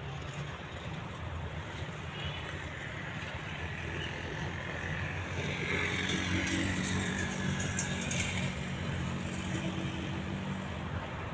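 A motor vehicle's engine running with a steady low hum, getting louder about halfway through and easing off again, as if passing by.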